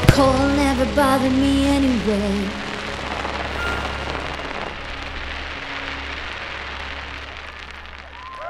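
A firework shell bursts with a sharp crack as the music ends, and a last held note dies away over the first two seconds. Then a gold crackling shell's glittering stars fizz and crackle like rain for several seconds as they fall, fading toward the end.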